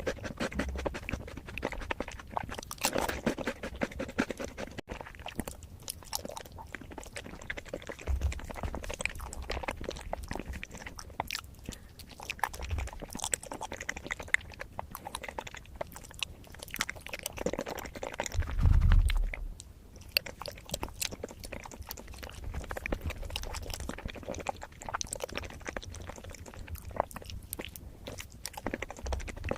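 Close-miked mukbang eating: a person chewing and crunching matcha food, with many small wet clicks and crackles. About two-thirds of the way through there is a louder low thump lasting about a second.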